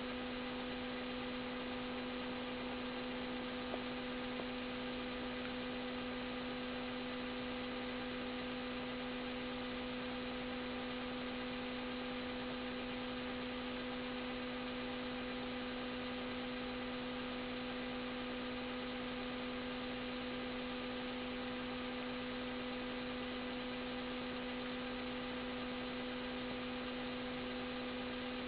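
A steady electrical hum with a faint hiss, holding one low tone and its overtones without change.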